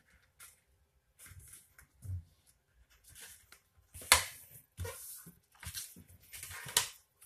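A sheet of paper being folded and pressed flat by hand, rustling and sliding on a hard countertop, with two sharper crackles of the paper about four seconds in and near the end.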